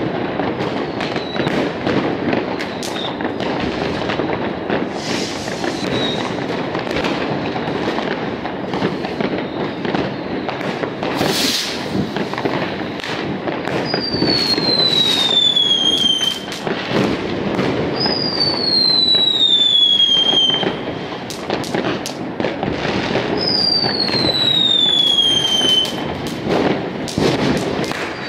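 Many fireworks and firecrackers going off at once in a continuous din of bangs and crackling. From about halfway through, a whistling firework sounds four times, each a falling whistle about two seconds long.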